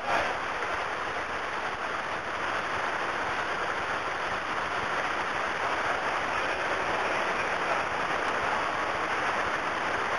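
Steady rush of flowing water in a narrow canyon, an even hiss that holds unchanged throughout.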